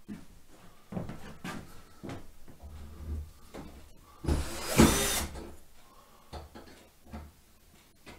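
Cordless drill and wooden workpiece being handled, giving a series of short knocks and clicks. About four seconds in, the drill runs in one short burst, driving a screw into the plywood panel.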